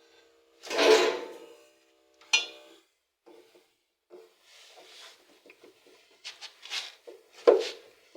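Handling noises as a replacement water-temperature thermistor is fitted into an LG washing machine: a loud knock about a second in, sharp clicks, and scattered small taps and rubbing sounds. A faint steady hum stops about three seconds in.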